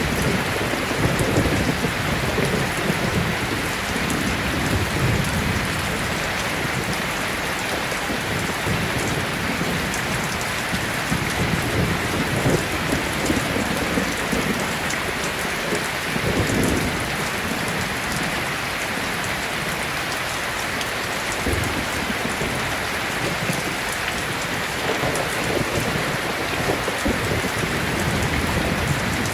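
Heavy rain pattering steadily, with low rolls of thunder rumbling now and then, strongest about 16 seconds in.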